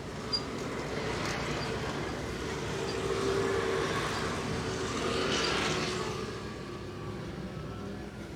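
Road traffic: a passing motor vehicle whose engine hum swells from about a second in and fades again near the end, with a single sharp click just after it begins.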